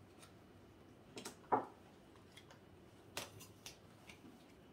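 Playing cards being laid out on a table: a few light taps and flicks, the loudest about a second and a half in.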